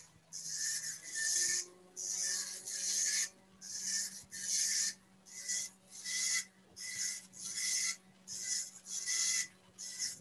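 OKI dot-matrix printer printing a picture on tractor-feed paper: the print head goes in high-pitched bursts of about half a second, one per pass, with short pauses between, a little over one a second. It prints the dots as a continuous buzz rather than the usual tick-tick-tick.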